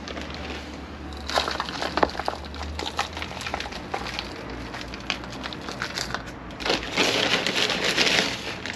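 Potting soil being scooped by hand and poured into a plastic seedling tray: irregular crackling and rustling of soil and plastic, busiest about seven seconds in.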